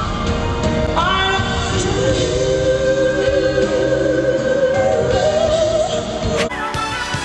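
A live vocal performance with band accompaniment: a singer rises into a long note held with vibrato for about four seconds. Near the end it cuts abruptly to another live recording of singing and music.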